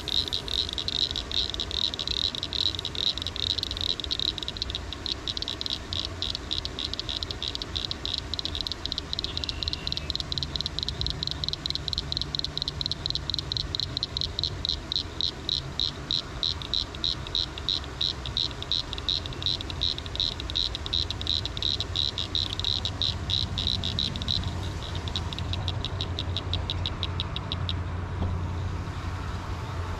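Evening chorus of crickets and frogs: a dense, high-pitched pulsing trill that carries on steadily, thins out about 24 seconds in and fades away near the end, over a low background rumble.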